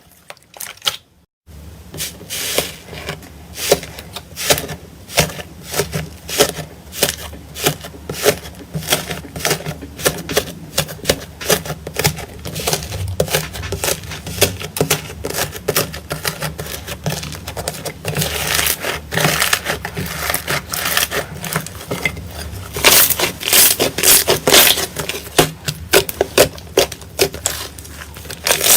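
Slime being pressed and squished by hand, giving a dense run of rapid clicking, crackling pops. It stops for a moment right at the start and gets louder in the second half.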